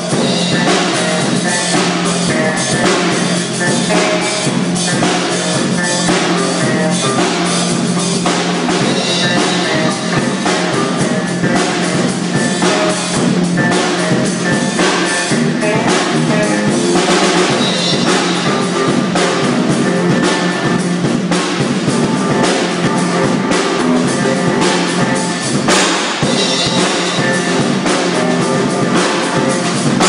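A band's song playing, led by a drum kit with bass drum and rimshots under guitar.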